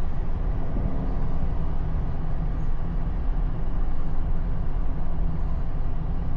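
Jeep Gladiator driving up a mountain road: steady engine and road noise with a low rumble.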